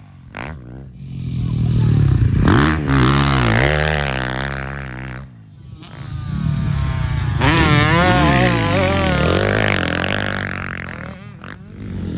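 Motocross bike engines revving hard, pitch sweeping up and down through throttle and gear changes. The sound swells loudest twice, near the start and again past the middle.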